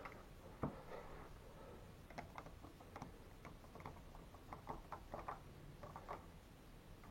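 Faint irregular clicks and light taps of door-lock hardware being fitted and screwed down, with one sharper knock about half a second in.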